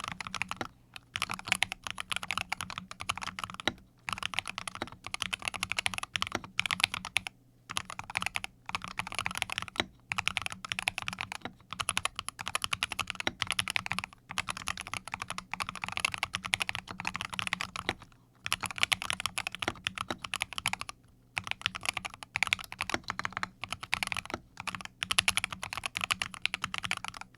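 Fast typing on a Corsair K70 TKL keyboard with fully lubricated OPX optical linear switches: quick runs of keystrokes broken every few seconds by brief pauses.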